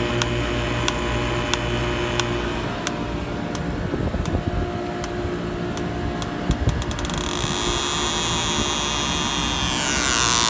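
York YCAL air-cooled chiller running: a steady mechanical hum with a regular ticking about every two-thirds of a second. A quick run of clicks comes past the middle, then a louder rushing hiss whose tone sweeps down and back up near the end.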